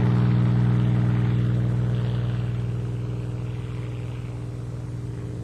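Hawker Hurricane's Rolls-Royce Merlin V12 engine running steadily at high power as the fighter climbs away just after takeoff, its sound slowly fading as it pulls away.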